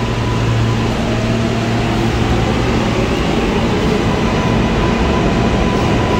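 New York City Subway L train of R143 cars pulling out along the platform: a steady rumble of wheels on rail, with a faint motor whine rising in pitch over the first few seconds.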